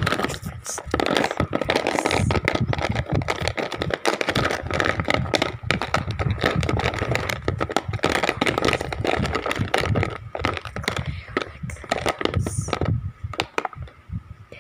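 Wax crayons clicking and clattering against each other and a plastic case as fingers stir through them, a dense, uneven run of small knocks that thins out near the end.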